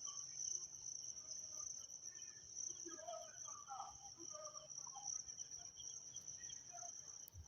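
Faint, steady, high-pitched trilling of insects in the evening, with a few faint scattered sounds in the middle of it.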